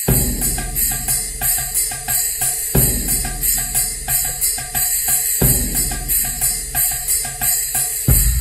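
Music played through JBL LX600 three-way loudspeakers, which have a 25 mm titanium-dome tweeter, for a treble test. Bright jingling percussion runs over a steady drum beat and bass, and the bass and drums come in right at the start.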